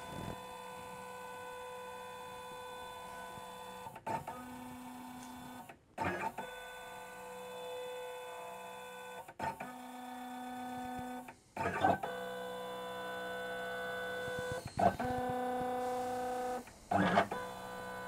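LongMill CNC router's stepper motors moving the axes through an automatic AutoZero touch-plate probing cycle to find the work zero. They make a steady multi-pitch whine that changes to a new pitch set with each move, about every two to four seconds, with a short click at each change.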